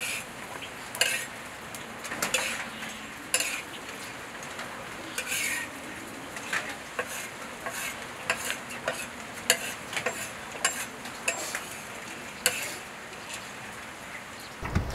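Spoon stirring dry grains as they roast in a pan over a wood fire: irregular scraping and rattling strokes over a steady hiss.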